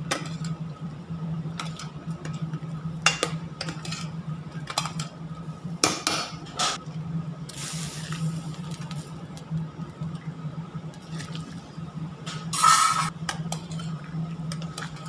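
A metal ladle stirring and knocking against a large stainless-steel stockpot of thick sauce with chunks of vegetables, with a stream of liquid poured into the pot about halfway through and a louder scrape near the end. A steady low hum runs underneath.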